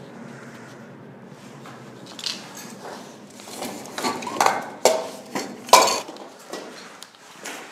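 Hard objects clinking and clattering in a quick, irregular run of sharp knocks, from about two seconds in to about six seconds in.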